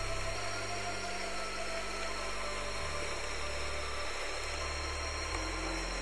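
A steady hiss of noise over soft background music, whose low held notes change about every two and a half seconds.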